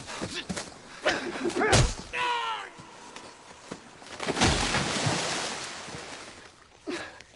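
Film battle sound effects: a heavy thud followed at once by a short falling cry, then, near the middle, a loud musket shot whose echo rolls away over about two seconds, and a brief shout near the end.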